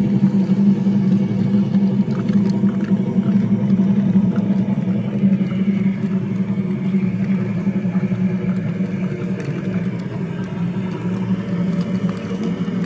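Battery-powered toy locomotive's small electric motor whirring steadily as it pulls its wagons along wooden track, with a few light clicks from the wheels and track.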